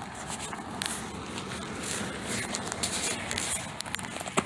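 Tandem bicycle being walked by hand, with footsteps and scattered small clicks and rattles from the bike. One sharp click comes just before the end.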